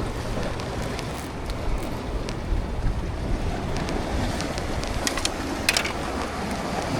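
Wind buffeting the microphone over sea waves washing against the rocks, a steady low rumble, with a few short sharp clicks about five to six seconds in.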